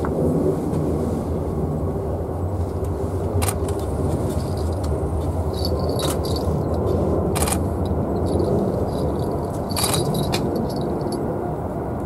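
Steady low rumble of outdoor background noise, with a few short sharp clicks scattered through it.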